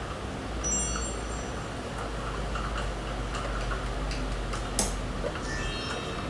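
A pan of egg noodles simmering under a glass lid over a steady low hum. A few brief high metallic rings come through, about a second in and again near the end, with one sharp click just before five seconds.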